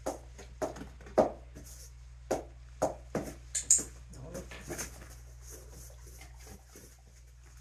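A series of short clicks, taps and brief rustles, irregularly spaced: hands handling small dog treats while a dog takes them from the fingers.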